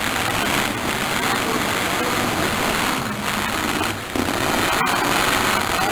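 Loud, steady din of a demolition derby: derby cars' engines running with a crackling, noisy edge, mixed with crowd voices.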